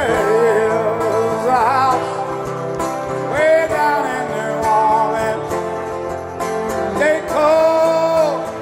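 Live rock band playing: a male lead singer sings over acoustic guitar and the band, holding a long note near the end.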